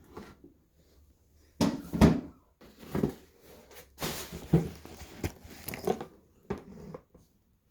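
Soft leather handbag being handled by hand: rustling, a few knocks and small clicks as its back pocket is opened and shown.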